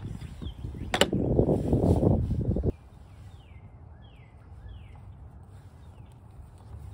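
Plastic coolant expansion-tank cap being twisted off by hand: a click, then a rasping rub of the threads that stops abruptly. Afterwards a bird chirps faintly outdoors, a few short falling notes.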